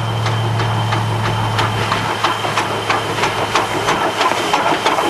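1930 Porter 0-6-0 steam locomotive passing close by at slow speed with a train of coaches: steam hiss and a low steady hum, with a quickening run of sharp clanks and clicks from its running gear and wheels on the rails that grows louder as it comes alongside.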